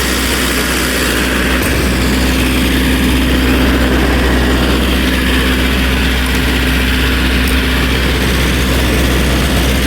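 MEP-803A military diesel generator running steadily with an even drone.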